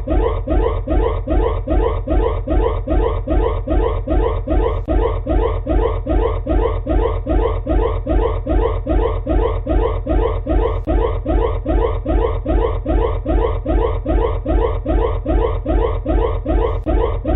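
Electronic emergency alarm tone: a short rising whoop repeated about three times a second, steady throughout, over a low hum. The sound is thin, as through a band-limited broadcast.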